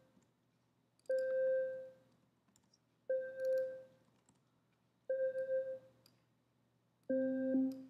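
Audiotool Pulverisateur software synthesizer playing one looped C note four times, about two seconds apart, each sounding for about a second. The last note, near the end, sounds fuller, with a lower tone an octave down added as the synth's oscillators are layered together.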